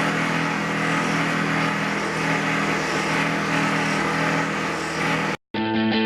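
A loud, steady motor-driven machine noise with a low hum running through it, cutting off abruptly about five seconds in; guitar music starts right after.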